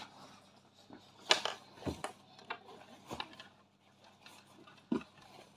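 Scattered light knocks and clicks of objects being handled, the loudest about a second in and another near the end.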